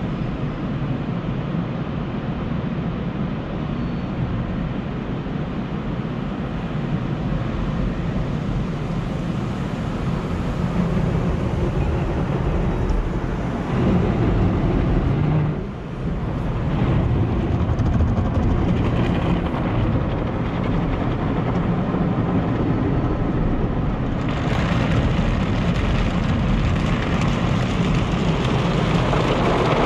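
Automatic tunnel car wash heard from inside the car's cabin: water jets spraying and washing over the body, windshield and sunroof with a steady rushing noise. It dips briefly about 16 s in and turns brighter and hissier from about 24 s on.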